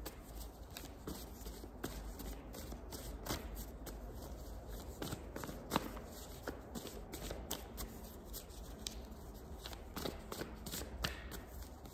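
Tarot deck being shuffled by hand: a faint, continuous run of quick, irregular card clicks and flutters as the cards are mixed to draw clarifiers.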